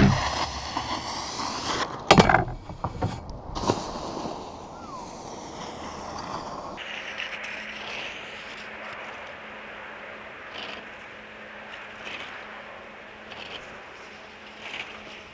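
A few sharp scrapes and knocks close to the microphone in the first few seconds, then a steady faint outdoor hiss with small scattered ticks.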